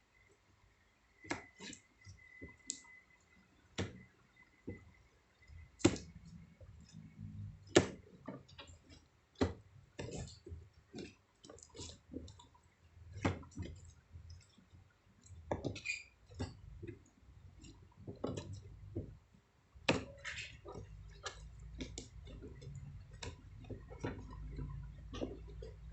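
Irregular light clicks and taps of small items and packaging being handled, a few of them sharper knocks. A low hum comes in near the end.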